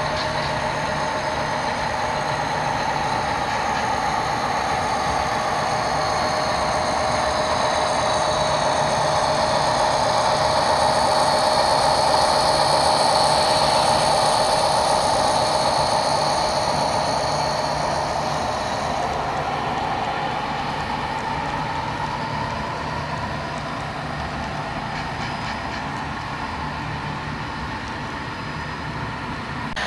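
Train running: a steady locomotive drone with a whine that swells toward the middle and eases off about two-thirds of the way through.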